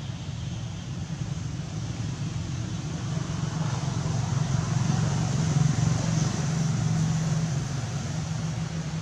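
Steady low engine hum of a passing motor vehicle, growing louder a few seconds in and easing off again near the end.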